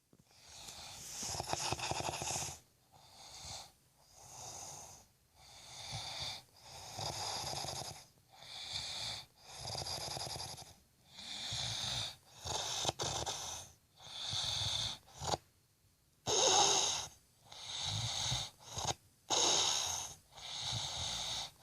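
Snoring in sleep: a long run of wheezy, hissing breaths in and out, roughly one a second.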